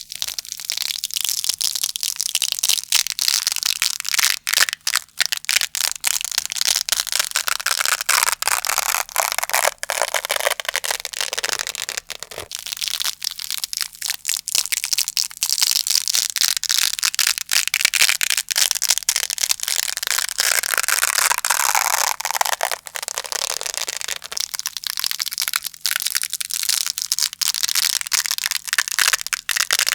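Velcro hook-and-loop fastener being ripped and rubbed close to the microphone: a dense, continuous crackle of tiny clicks, fuller and lower through the middle stretch.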